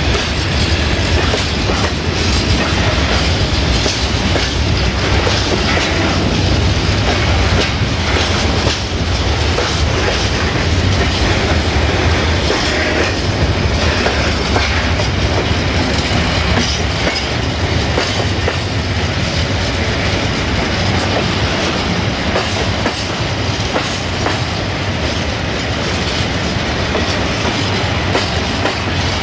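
Freight train's covered hopper wagons, then flat wagons, rolling past close by: a steady rumble with the wheels clattering over the rail joints.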